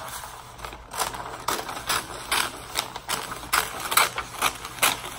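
Christmas wrapping paper crinkling and rustling as it is handled and worked, in an irregular run of short, sharp crackles, several a second.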